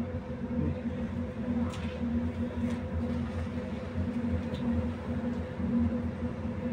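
Inside a tram standing still: its electrical equipment gives a steady hum with a low, pulsing drone beneath it. A couple of faint clicks come about two and three seconds in.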